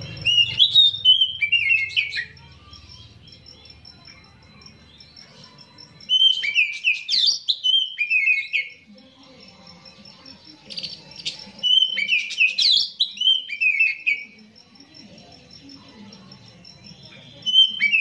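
Male oriental magpie-robin singing: bursts of rapid, varied whistled notes lasting two to three seconds each, separated by pauses of a few seconds, with the last phrase beginning near the end.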